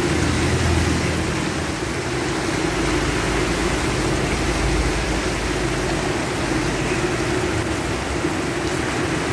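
Steady rain falling, an even hiss, with a steady low hum underneath.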